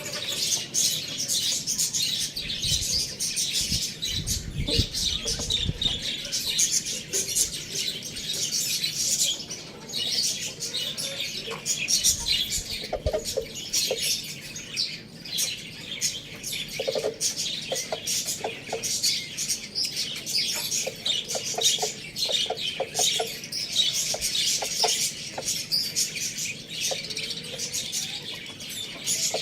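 A dense, continuous chatter of small birds chirping, with short, lower clucking calls from chickens scattered through it. There are a few low rumbles near the start.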